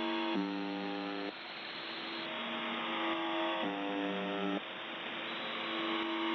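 UVB-76 ('The Buzzer') shortwave station on 4625 kHz sending its buzz tone over radio hiss. Twice, a low, harsh buzz lasts about a second, with a fainter steady drone between the buzzes.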